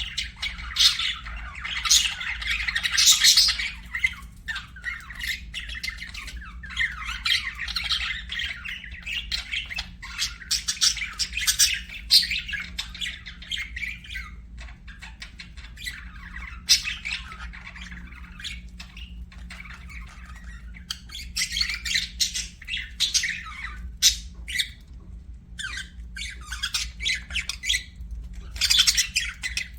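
Several budgerigars chirping and chattering, a dense run of quick overlapping chirps and warbles, with louder busier spells at the start, around the middle and near the end.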